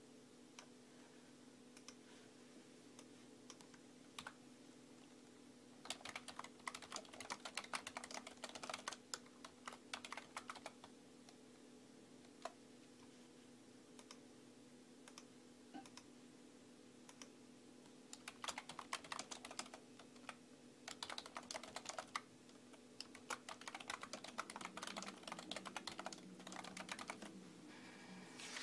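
Typing on a computer keyboard: three runs of rapid keystrokes with scattered single key clicks between them, over a faint steady low hum.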